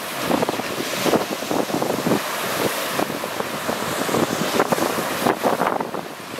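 Lake Superior surf breaking on a rocky, pebbly shore, a steady rush of water with wind buffeting the microphone.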